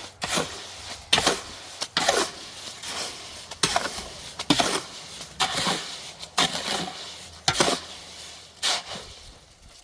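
A hand tool working cement mortar, in repeated sharp scraping strokes about one a second, each trailing off quickly.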